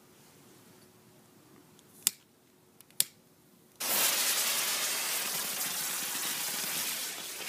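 Two sharp clicks of a lighter being struck, then a length of visco fuse catches about four seconds in and burns with a steady hiss.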